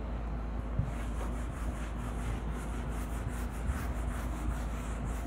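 Whiteboard eraser rubbing across a whiteboard in quick back-and-forth wiping strokes, starting about a second in.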